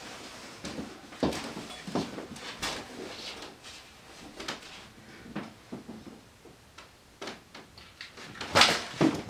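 Scattered light wooden knocks and clicks from a home-built harmonograph's pole frame and strings as its pendulum is launched and swings, with one sharper knock near the end.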